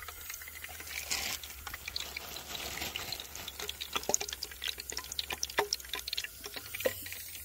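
Breaded fish sizzling in a pot of hot frying oil, the oil bubbling with a steady hiss and many quick crackles and pops as the pieces go in.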